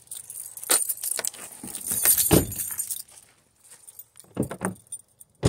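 Keys jangling and rustling, clicking handling noise as someone climbs out of a car, with a heavier thump a little over two seconds in, then a few lighter knocks and steps.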